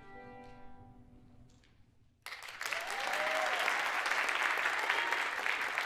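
The last held chord of a violin and piano dying away, then audience applause breaking out suddenly about two seconds in and continuing steadily.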